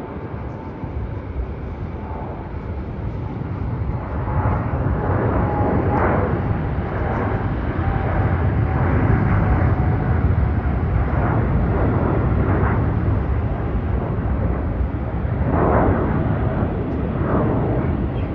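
Boeing 787 Dreamliner's jet engines at takeoff power: a loud, deep rumble that swells over the first few seconds and then holds. A faint whine slowly falls in pitch under the rumble.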